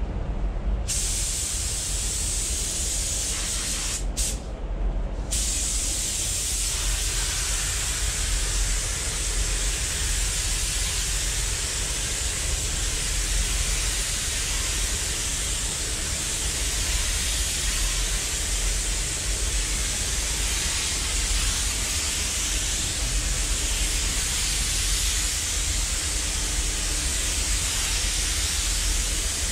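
Gravity-feed spray gun hissing steadily as compressed air atomises paint, over a low steady rumble of the spray booth's ventilation. The hiss comes in about a second in and breaks off briefly about four seconds in.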